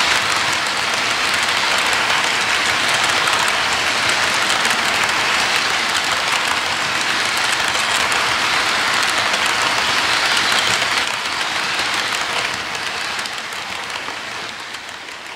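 HO scale model freight train rolling past on its track: the steady rush of many wagon wheels running on the rails, fading away over the last few seconds.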